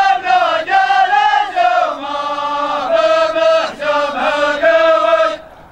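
Men's voices chanting Arabic poetry in a slow melody of drawn-out held notes; the chant breaks off shortly before the end.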